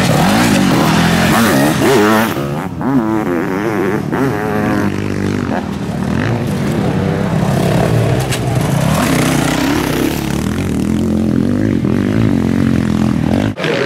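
Motocross sidecar outfits' engines revving hard over the track's jumps, the pitch climbing and falling again and again as the throttle is opened and shut, with more than one machine heard at once.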